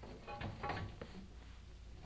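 Chimney inspection camera knocking and scraping against the flue walls as it is lowered down the chimney, with a brief squeaky scrape about half a second in.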